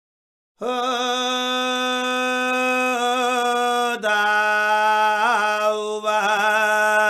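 A single voice chanting a Samaveda sāman (Sāma Gāna), drawing out long vowels on a held pitch with a few short melodic turns. It begins about half a second in and breaks off for a moment about four seconds in.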